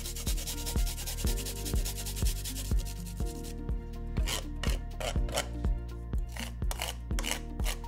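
Garlic clove rubbed back and forth on a flat stainless-steel rasp grater, a fast, dense run of scraping strokes. About three and a half seconds in the grating stops, and a wooden spoon scrapes the grated garlic off the grater in a few separate strokes.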